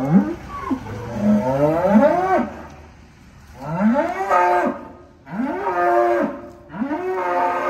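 Cattle mooing: about five loud calls, each rising and then falling in pitch, two overlapping near the start and the last three following one another about a second and a half apart.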